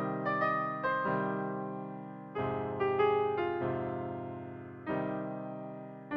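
Solo piano music: chords and melody notes struck every second or so, each left to ring and fade.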